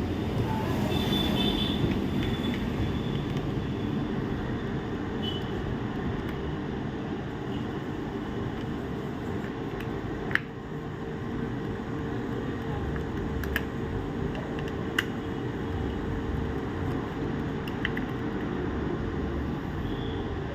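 Steady low rumble of background noise, with a few sharp clicks about halfway through and toward the end, the sounds of small parts and tools handled while a laptop is taken apart.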